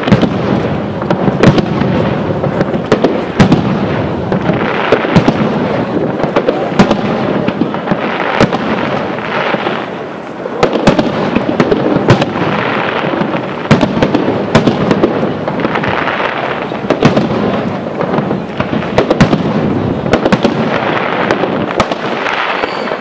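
Fireworks display: aerial shells bursting in quick succession, a steady run of sharp bangs over a continuous rumble, with stretches of crackling from the bursting stars every few seconds.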